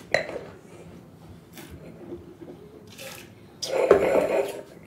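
A mouthful of wine spat into a metal spit bucket: a single splashing spurt lasting about a second, near the end. Before it come a few short, quieter mouth sounds from tasting, one sharper one right at the start.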